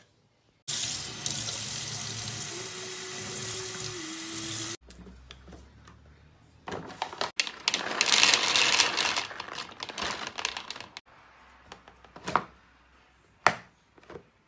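Water running steadily for about four seconds, cut off suddenly. Then dry dog kibble pouring from its bag into a plastic box as a dense run of small clicks, followed by two sharp clicks of the box's plastic lid being pressed shut.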